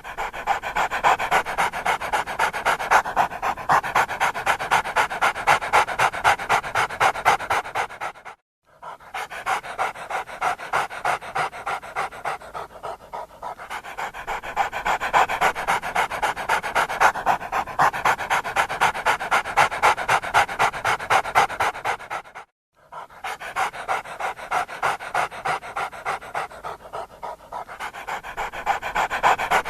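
A dog panting fast and steadily, about four breaths a second, cut off twice by a brief silence.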